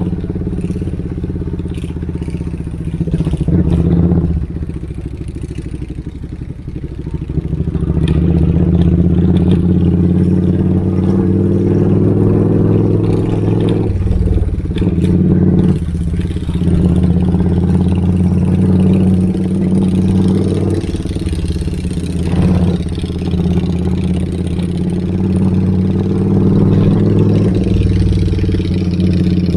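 Old motorcycle with a loud exhaust running at a steady engine speed. It eases off for a stretch a few seconds in, then holds steady again with a few brief dips.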